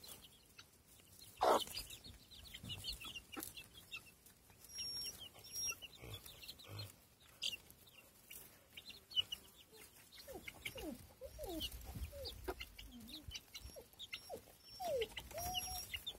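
Four-week-old chicks peeping in many short high chirps, with lower gliding clucks from the flock coming in during the second half. A brief louder rustling noise comes about a second and a half in.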